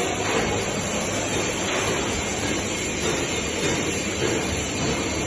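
Steady, even workshop noise: a continuous rumbling hiss with no distinct events.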